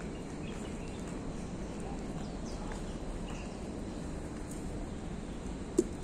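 Steady low outdoor background rumble with a few faint high chirps, and one sharp click near the end.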